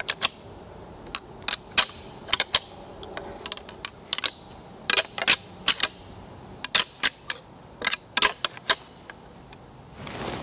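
Irregular, sharp crackling clicks of dry fallen leaves and twigs underfoot as a deer walks through the leaf litter, a few at a time with short pauses between.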